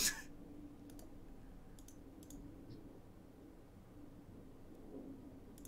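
A handful of faint, short computer clicks, scattered over several seconds, over a low steady hum.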